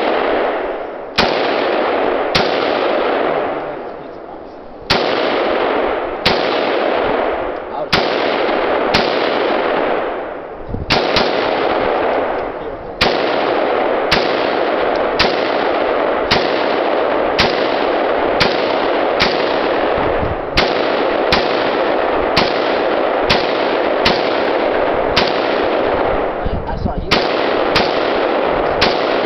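AK-47-pattern rifle fired semi-automatically, some two dozen shots, each followed by a long echoing tail. The shots come unevenly at first, then in a steady string about one a second.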